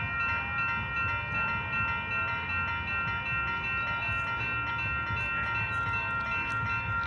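Railroad grade-crossing bell ringing steadily over the low rumble of freight cars rolling slowly through the crossing.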